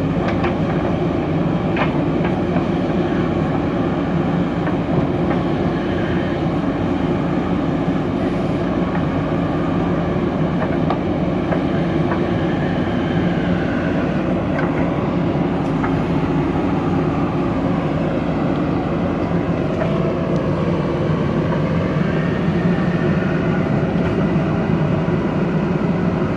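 Diesel engine of a JCB 3DX backhoe loader running steadily under work, with a few light knocks.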